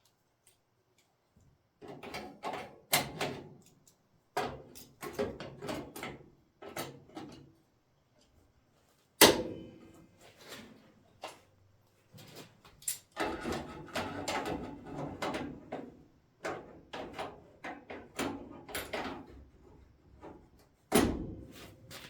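Irregular clunks, knocks and rattles of metal parts being handled and fitted, with one sharp loud bang about nine seconds in and another near the end.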